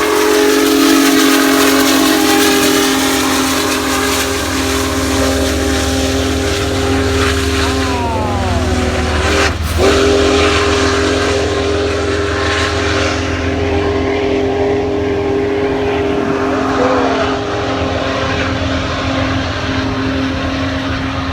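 Union Pacific Big Boy 4014 steam locomotive's chime whistle sounding a long held blast of several notes, cut off and started again briefly about halfway through, over the low rumble of the passing train.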